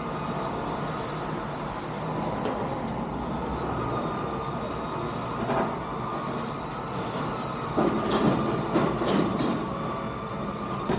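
Trailer winch running steadily with a faint whine, letting the 1926 Ahrens-Fox fire truck down the tilted car-hauler deck. A few clanks and creaks come from about eight to nine and a half seconds in.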